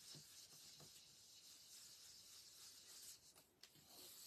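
Very faint, soft strokes of a round ink blending brush rubbed over cardstock, about three a second, under a steady hiss; a few light ticks near the end as the paper mask is picked up.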